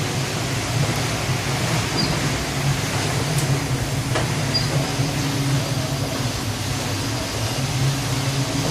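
Steady low hum of ship's engines or machinery under a continuous rush of wind and sea noise. There are faint clicks and small high squeaks now and then.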